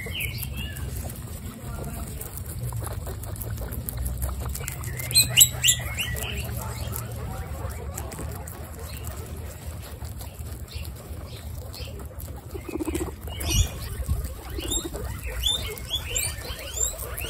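Guinea pigs chewing romaine lettuce leaves: a steady run of small crisp crunches, with louder crunching about five seconds in and again near the end.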